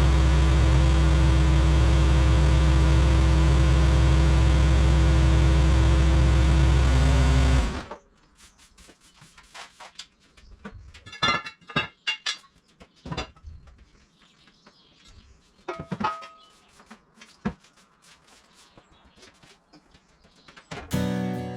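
An engine running steadily with a deep low hum, cutting off abruptly about eight seconds in. Quiet follows, with scattered small clicks and knocks, and music with a steady pitched accompaniment begins near the end.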